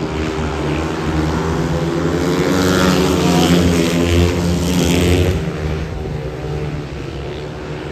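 Speedway bikes' 500cc single-cylinder methanol engines racing around the track. The sound swells as a bike passes close by, its pitch dropping as it goes by about three seconds in, then fades as it moves away.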